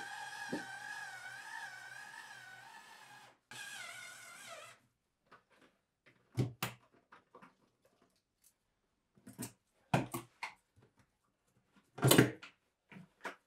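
Cordless electric screwdriver whirring as it backs out screws, in two runs with a wavering pitch. These are followed by a few sharp knocks and clunks as metal parts are pulled off the cabinet, the loudest near the end.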